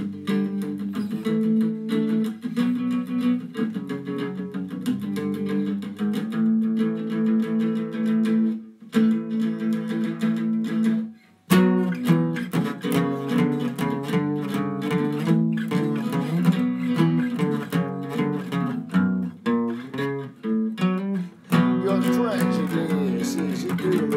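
Acoustic guitar strummed in steady chords through an instrumental break, with a brief pause about eleven seconds in before the strumming picks up again.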